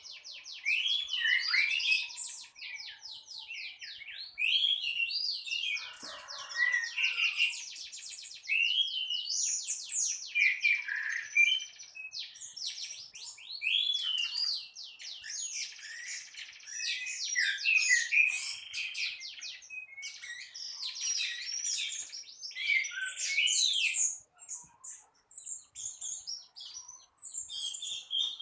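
Orange-headed thrush singing in full, continuous song: varied whistled phrases and rapid trills, one after another with only brief pauses.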